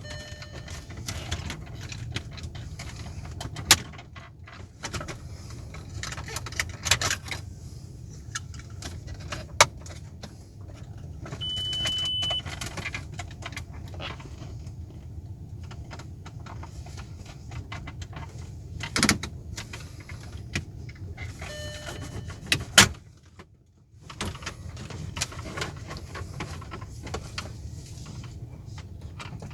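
Plastic clicks, snaps and knocks as the Passat B5's centre-console trim is pried and pulled off by hand, over a steady low hum. A short, high, single-pitched beep sounds about twelve seconds in.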